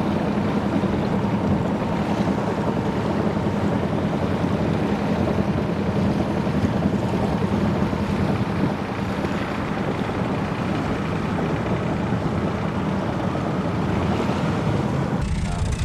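Wind buffeting the microphone and water rushing along the hull of a sailboat under motor, over the steady drone of its inboard engine. The sound changes abruptly about a second before the end.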